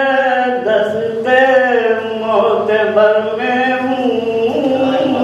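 A man's voice chanting lines of an Urdu ghazal in a slow sung melody (tarannum), with long held notes and short breaks between phrases.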